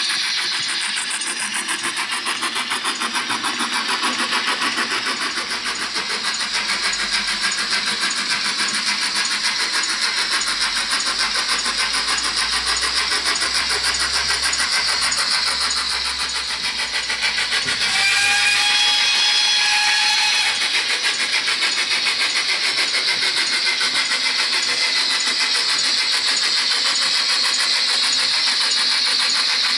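Digital sound decoder playing a GWR 28xx class 2-8-0 steam locomotive's exhaust beats, rapid and steady, through a small speaker in the tender of an 00-gauge model as it runs. About 18 s in, a whistle tone sounds for about two seconds.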